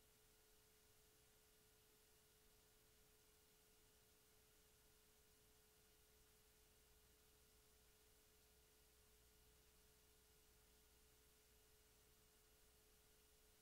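Near silence: room tone with one faint, steady, unchanging tone.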